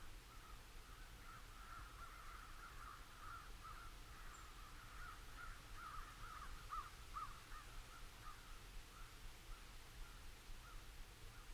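Crows cawing faintly in a rapid, continuous chatter of many short calls, swelling a little in the middle.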